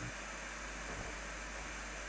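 Steady background hiss; a low hum cuts off right at the start.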